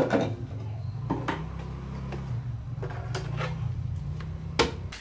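Plywood panels being handled and set down: several hard wooden knocks and clatters, the sharpest at the start and near the end, over a steady low hum.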